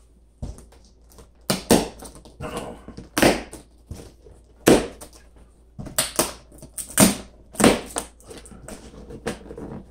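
Plastic packing straps being cut and pulled off a cardboard box: about ten sharp snaps and slaps against the cardboard, with rustling in between.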